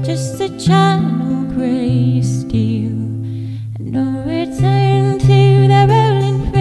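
A woman singing a slow folk song with vibrato on long held notes, accompanying herself on acoustic guitar.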